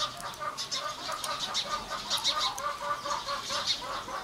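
Chickens clucking: a steady run of short, repeated calls.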